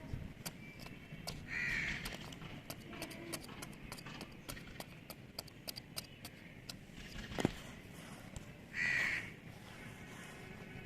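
A crow cawing twice, once about two seconds in and again near the end. Scattered light clicks and one sharp knock a little past the middle are heard around the calls.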